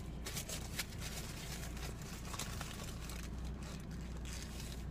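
Paper burger wrapper crinkling and rustling in irregular bursts as the burger is handled, over a low steady hum.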